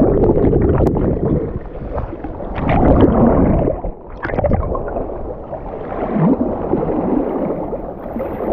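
Wind rumbling on the microphone over the uneven wash of sea water.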